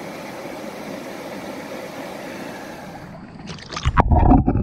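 A steady rush of running stream water, then a few sharp clicks and splashes about three and a half seconds in. After that the sound turns to a muffled low rumbling with irregular knocks, heard underwater.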